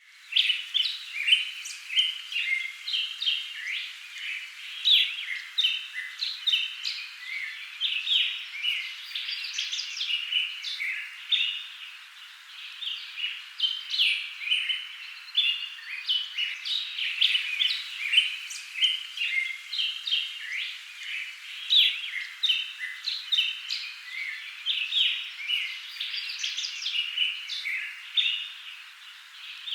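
Small birds chirping continuously, many short overlapping chirps.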